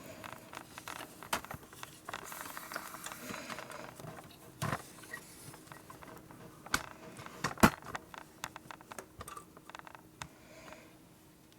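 Hands working on a motorcycle frame, fitting rubber oil lines and small metal brackets: scattered light clicks, taps and handling noises, with a sharper knock about two-thirds of the way in.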